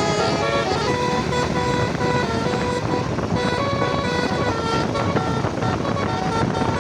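Indonesian bus 'telolet basuri' multi-tone musical horn playing a tune: a run of held notes that change pitch every fraction of a second. A steady noisy rumble of engines and traffic runs underneath.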